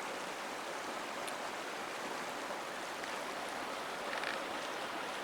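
Steady rushing of a creek flowing over rocks and small waterfalls.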